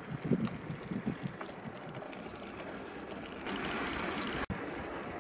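Wind buffeting the microphone in gusts. About three and a half seconds in, a steady hiss of wind and bicycle tyres on asphalt takes over as the bike rolls along the road, cutting out for an instant about a second later.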